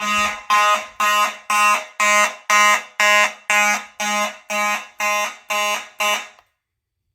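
Fire alarm horn pulsing at about two blasts a second, set off by a heat detector under test. It cuts off suddenly about six seconds in when the alarm is silenced.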